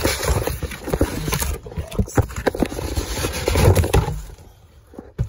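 Cardboard shipping box being handled and opened: rustling, scraping and a run of knocks against the cardboard, dying down about four seconds in.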